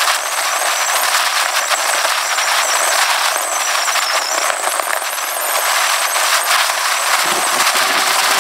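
Wind buffeting the microphone of a camera riding on a moving motorcycle, a loud crackling rush. Near the end a low engine sound comes in under it.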